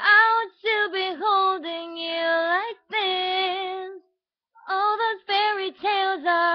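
A young female voice singing a pop melody with no accompaniment, in a run of held notes with short breaths between them and one longer pause about two-thirds of the way through.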